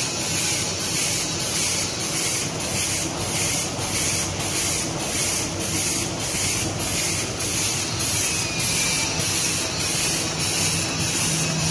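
Automatic cutlery packing machine running: a steady mechanical hiss that pulses in an even rhythm about three times a second as it cycles.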